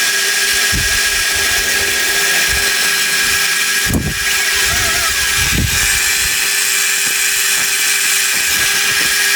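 Powered metalworking machine running steadily, with a constant whine and hiss, as it machines a steel part; a few low thumps, the clearest about four seconds in.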